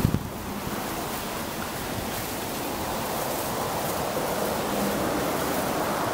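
Steady rushing wind on the camera microphone, with two handling knocks right at the start as the camera is turned.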